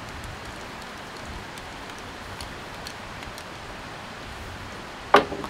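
A steady hiss with faint scattered ticks, then about five seconds in a single sharp metallic snap, the break-action muzzleloading rifle being closed once it is reloaded.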